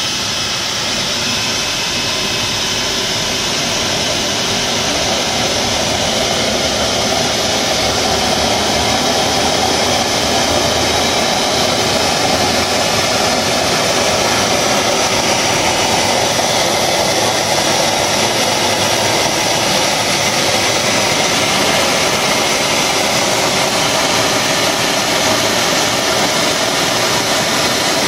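Homemade turbocharger-based turbojet being spun up by its homemade starter, a steady rushing roar with a high whine that grows a little louder over the first ten seconds. The starter is not enough to bring the engine to its idle speed.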